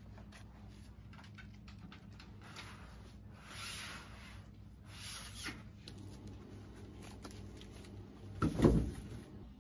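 Gear being loaded into a pickup truck's bed: an inflatable boat rubbing and scraping as it is pushed in, then a bundle of firewood set down on the bed with a loud thump near the end.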